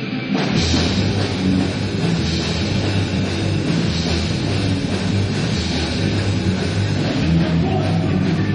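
Rock band playing heavy rock with electric guitar, bass and drum kit; the bass and drums come in strongly about half a second in.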